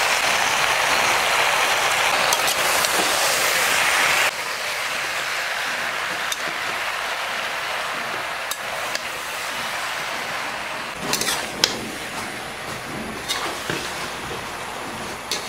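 Malabar spinach leaves and curry sizzling in a hot pan, loud for the first four seconds, then dropping abruptly to a quieter steady sizzle. Occasional sharp utensil clinks against the pan.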